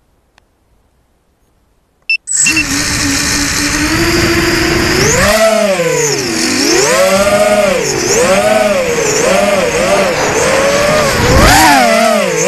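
A short beep, then the four brushless motors of a 250-size racing quadcopter (Racerstar 2205 2300KV motors spinning three-blade 5-inch props) start up about two seconds in and hum steadily at idle. After a few seconds they whine up and down in pitch again and again as the throttle rises and falls in flight.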